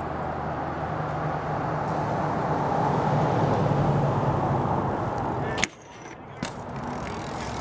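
Steady road traffic noise with a low engine hum, swelling to its loudest about three to four seconds in. About five and a half seconds in there is a sharp knock, after which it drops quieter, and a second smaller knock follows about a second later.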